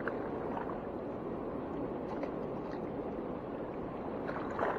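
Steady rush of turbulent river water flowing out below a dam's powerhouse, with a brief louder noise near the end.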